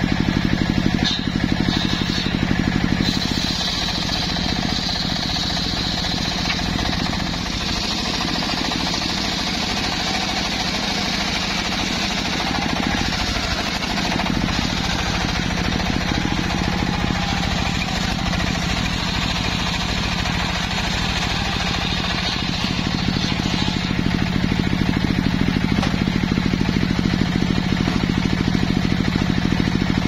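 Homemade engine-driven circular sawmill running, its large blade ripping a log lengthwise: a steady machine drone with a high whine from the blade in the wood.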